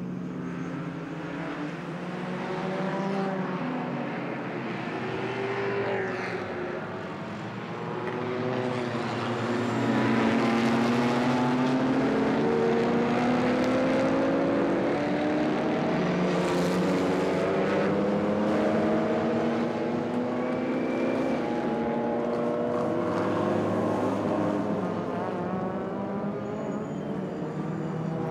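Racing car engines running and passing, several engine notes overlapping and rising and falling as the cars accelerate and shift, getting louder about ten seconds in.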